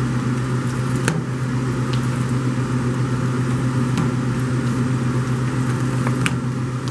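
Steady low hum of commercial kitchen machinery, with a few faint clicks and crinkles as gloved hands squeeze and mix cream cheese and shredded cheddar in an aluminium foil pan.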